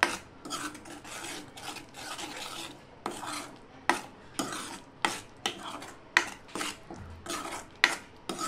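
A metal spoon stirs and scrapes a thick masala paste around a kadhai as the spices are fried, with repeated sharp clicks of the spoon against the pan.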